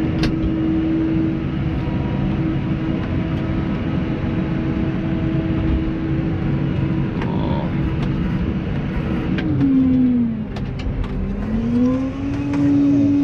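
New Holland T6.180 tractor's six-cylinder diesel engine running steadily, heard from inside the cab with a steady whine over the drone. About nine and a half seconds in, the note falls, then climbs back up a couple of seconds later.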